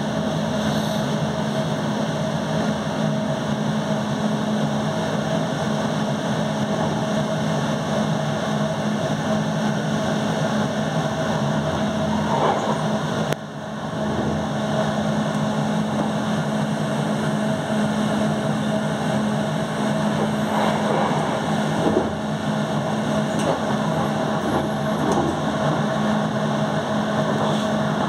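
A passenger train running along the main line, heard from its front cab: steady rolling noise from the wheels on the rails, with a constant low hum and a higher hum. The noise drops away sharply for a moment about halfway through, then comes back.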